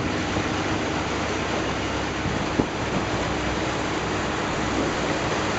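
A boat's engine running steadily: a constant low hum under an even rushing noise.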